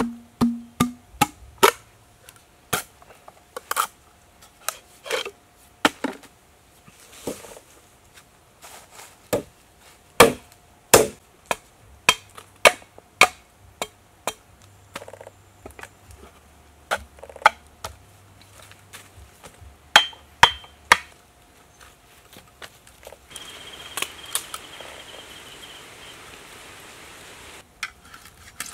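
Machete blade striking bamboo and wood: a string of sharp, irregularly spaced chopping knocks, then about four seconds of steady scraping near the end.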